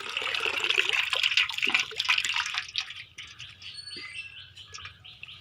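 Water splashing and dripping in a flooded field, from hands and fish moving in the shallow water, busiest for about the first three seconds and then thinning to a few light drips.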